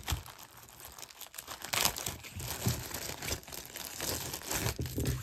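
Crinkling and rustling of jewelry packaging being handled, in irregular crackles.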